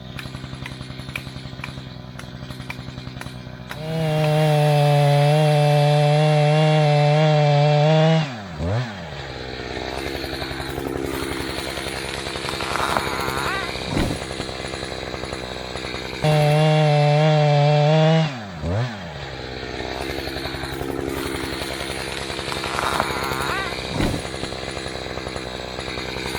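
Two-stroke chainsaw run up to full throttle and held steady for about four seconds, then let off so the pitch drops back down. The same run-up and let-off comes again about halfway through, with the saw running at lower revs in between.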